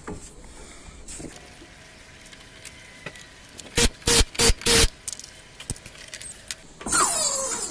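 Cordless impact wrench hammering the front wheel nuts tight in four short bursts over about a second, midway through. Near the end there is a short rushing noise with a falling whine.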